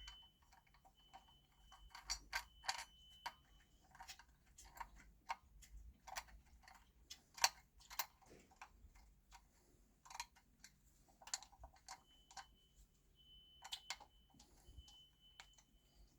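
Faint, irregular metal clicks and taps as bolts are put in and turned with a small Allen key, fixing the monitor arm to its desk-clamp base.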